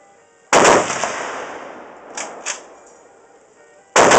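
.50-calibre machine gun firing armor-piercing incendiary tracer rounds: a brief burst about half a second in whose report echoes and fades over about three seconds, with two fainter sharp cracks a little after halfway. Just before the end a longer burst starts, about eight to ten shots a second.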